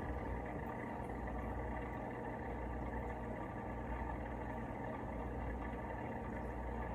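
Steady low hum of running aquarium equipment, such as a filter or air pump, with an even wash of noise above it and no breaks.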